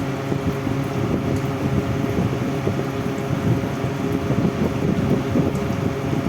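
Air cooler running: a steady rush of air from its fan with a low motor hum underneath.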